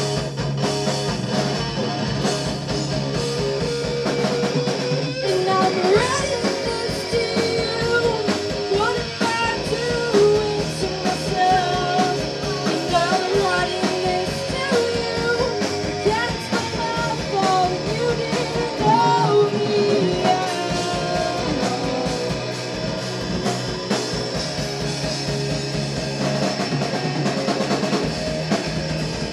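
A rock band playing live: drum kit, guitar and bass guitar throughout, with a singer's voice coming in about six seconds in and dropping out around twenty seconds in.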